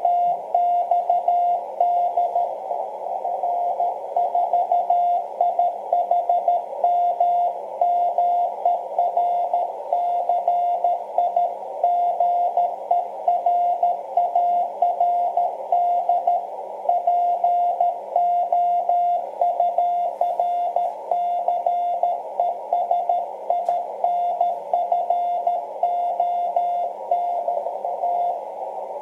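Morse code (CW) signal received on the 30 m amateur band through a transceiver: a single tone of about 700 Hz keyed in quick dots and dashes over a narrow band of receiver hiss. The keying pauses just before the end.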